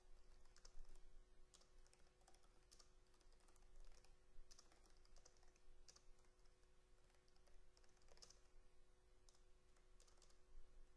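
Faint typing on a computer keyboard: irregular keystrokes with short pauses between bursts, over a faint steady hum.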